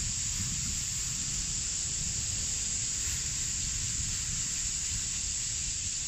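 Steady high hiss, with an uneven low rumble of wind on the microphone.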